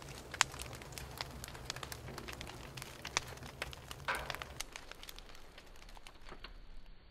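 Wood fire crackling, with irregular sharp pops and one louder pop about half a second in.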